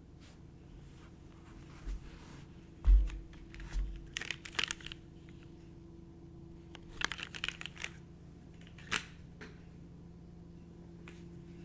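Scattered clacks in small clusters and a couple of low thumps, a few isolated keystrokes and handling around a mechanical keyboard with linear Cherry MX Black switches, over a faint steady hum.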